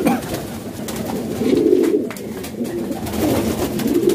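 Royal Teddy pigeons cooing, several low warbling coos, with faint footsteps.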